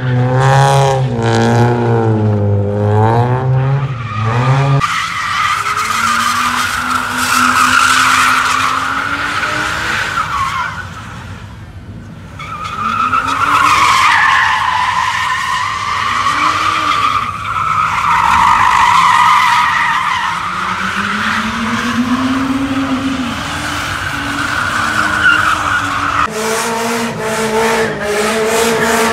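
A car drifting in circles, its engine revving up and down at high rpm while its tyres squeal in long screeches. The squeal eases briefly about twelve seconds in. Near the end the sound changes abruptly to a steadier engine note.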